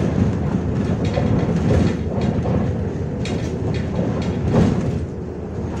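Inside a 2009 MAZ-105.465 articulated city bus on the move: a steady drone from the engine and drivetrain, with irregular rattles and knocks from the body and fittings over the road.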